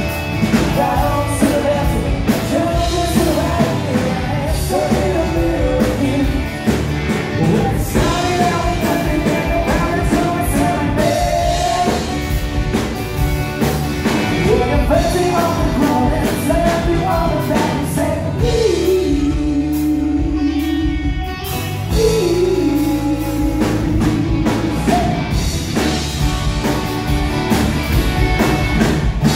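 Live rock band playing: a male voice sings the melody over guitars, bass guitar and a drum kit, heard in the room of a bar.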